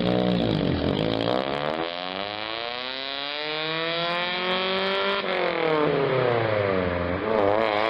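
Toyota Altezza's 3S-GE four-cylinder engine, breathing through a newly fitted performance air filter, being revved. It climbs slowly to high revs over about four seconds, holds there briefly, falls back to idle about five seconds in, then gets one short blip near the end.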